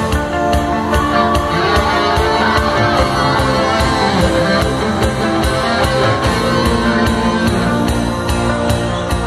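Loud live band music over the stage PA: an instrumental passage with guitar over a steady drum beat.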